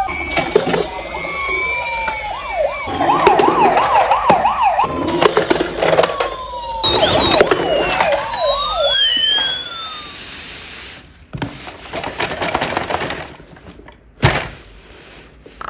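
Toy police car and ambulance sirens sounding together: fast up-and-down yelps overlapping slower rising and falling wails. They die away after about ten seconds, leaving scattered clicks and one sharp knock near the end.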